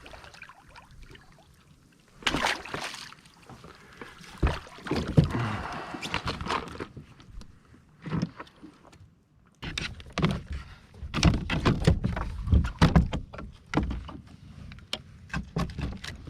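Irregular knocks, thumps and splashes on a fishing kayak while freshly caught small mahi-mahi are handled and stowed, sparse at first and coming thick and fast for the last several seconds.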